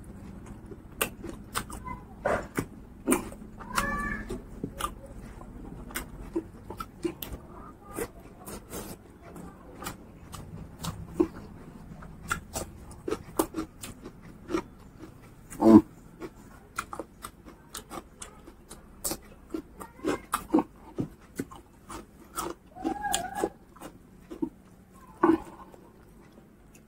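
Close-miked eating sounds of a person eating rice and pork curry by hand: wet chewing, lip-smacks and mouth clicks, with a few short hums from the eater and one louder bite about halfway through.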